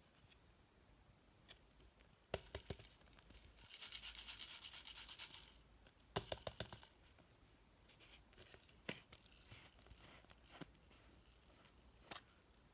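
Store-bought floam slime being squeezed and pressed, its foam beads crackling in short clusters, with one longer run of rapid crackling about four seconds in.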